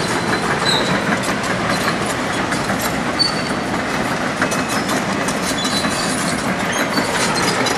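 Heavy machinery running with dense, rapid metallic clattering and a few short high squeaks.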